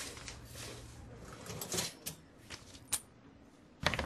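Faint scattered clicks and knocks over a low hum, with a sudden louder noise near the end.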